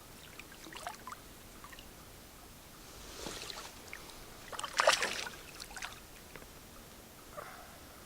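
Water splashing and small knocks around a canoe, with one louder splash about five seconds in.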